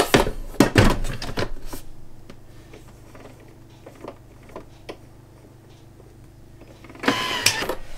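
Stainless mixing bowl of a Thermomix TM6 knocking into the base with its lid, then a few soft clicks as the selector dial is turned. About seven seconds in, the blades start with a loud whirr, blending garlic butter for a few seconds.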